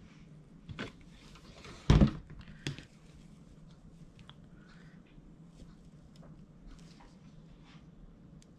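A hot glue gun is set down on the tabletop with a sharp knock about two seconds in, with a couple of lighter clicks around it. Then faint rustling and small ticks as thick nautical rope is handled and wrapped around a wire wreath form.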